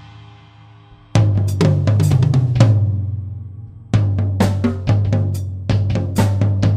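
Mapex Saturn Walnut/Birch drum kit with Zildjian Z3 cymbals, close-miked with no EQ: drums ringing out and fading for the first second, then a fill of strikes around the kit that is left to ring down, and from about four seconds in a steady pattern on bass drum, snare and cymbals.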